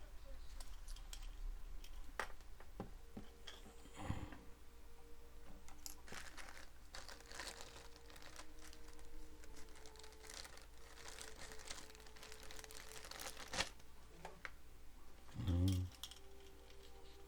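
Plastic packaging crinkling and rustling, with scattered clicks, as camcorder parts and accessories are unwrapped by hand. Near the end comes a brief low hum.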